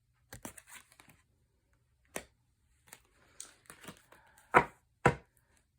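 Cards being handled on a table: scattered light clicks and rustles, with two sharp snaps about half a second apart near the end.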